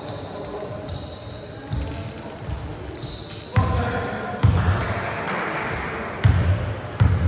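A basketball bounces four times on a wooden sports-hall floor, starting about halfway in: the shooter dribbles at the free-throw line before the shot. Each bounce is a sharp thud that echoes in the hall. Before that, trainers squeak on the floor, with voices around.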